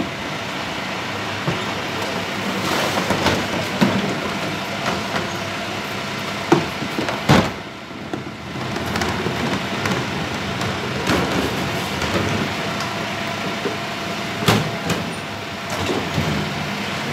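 Dennis refuse truck running steadily at the rear bin lift, with several sharp clanks and bangs as a wheelie bin is handled and emptied; the loudest bang comes about seven seconds in.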